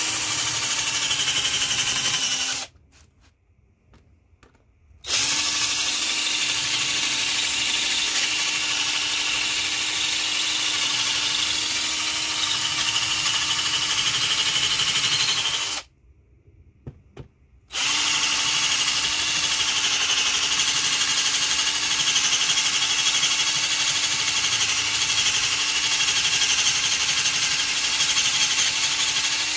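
Power drill running at a steady speed in three long runs, stopping twice briefly in between.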